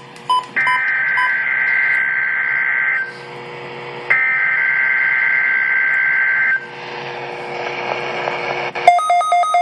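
NOAA Weather Radio receiver playing the SAME digital header of the required weekly test: a few short beeps, then two long bursts of steady two-pitch data tones, each about two and a half seconds, with radio static between and after them. Near the end the receiver starts a rapid, pulsing alert beep.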